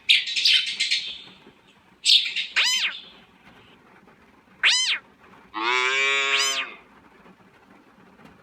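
A series of separate short animal-call sound effects played one after another: two brief noisy bursts, then high calls that rise and fall in pitch, and a longer, lower call about six seconds in.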